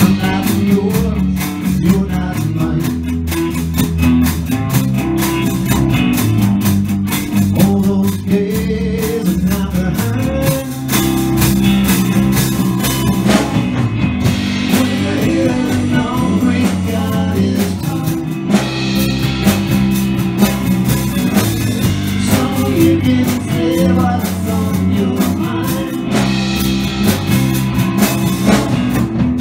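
Live blues band playing: electric guitar, bass and drum kit, with vocals.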